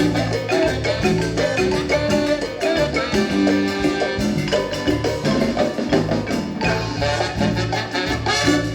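Marimba music: many quick struck mallet notes in a lively dance rhythm over a steady bass line.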